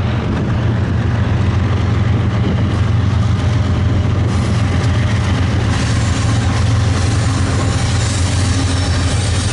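BNSF diesel freight locomotives passing close by, their engines running with a steady low drone. The sound grows fuller from about halfway in as the locomotives come level.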